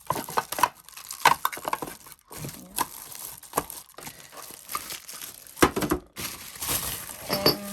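Packaging crinkling and rustling as small drawer organizers are handled, with irregular sharp clicks and taps.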